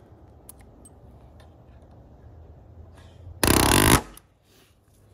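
Palm nailer driving a long nail in one rapid burst of hammering blows, about half a second long and very fast, about three and a half seconds in.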